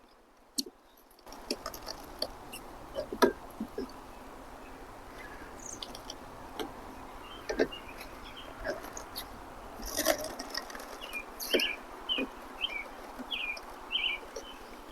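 Scattered clicks, knocks and scrapes of a pry tool working under an old RV roof skylight's frame, lifting it off the butyl tape beneath. Over the last few seconds comes a run of short bird chirps, about two a second.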